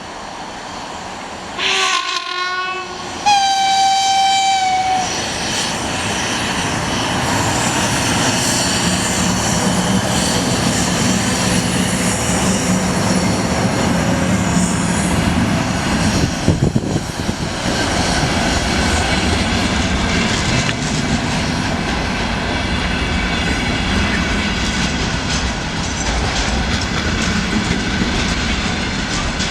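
2ES6 'Sinara' electric locomotive sounding its horn twice in greeting, a short blast then a longer one of about two seconds, followed by the steady rumble and wheel clatter of its container train rolling slowly past.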